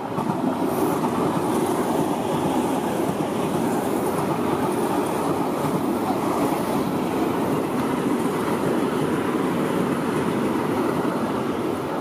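Tobu Tojo Line electric commuter train passing close by at a level crossing: the steady rumble of its wheels on the rails, which comes up sharply at the start and stays loud throughout.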